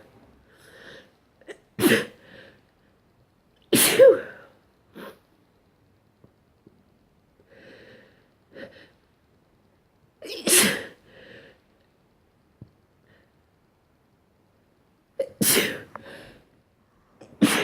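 A person sneezing about five times at uneven gaps, each a sudden loud burst, with quieter breaths between the sneezes.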